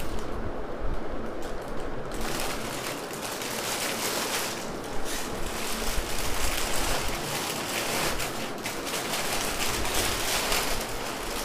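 Thin plastic poly bag rustling and crinkling as it is pulled off a flat-screen TV; the rustle turns crisper and more crackly from about two seconds in.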